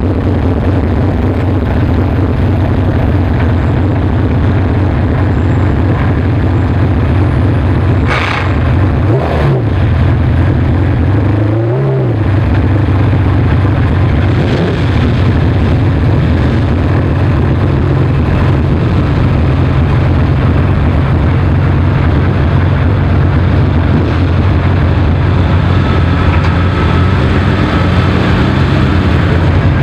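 McLaren F1's BMW V12 idling steadily, revved briefly twice, about nine and twelve seconds in.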